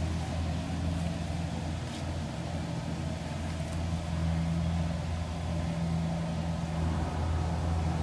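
Farm machine's diesel engine running at a steady speed, a constant low hum, a little louder in the second half.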